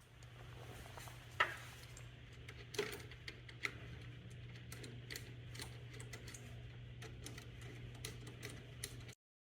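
Irregular light clicks and taps of small hard parts being handled, over a steady low hum. The loudest click comes about a second and a half in, and the sound cuts off suddenly near the end.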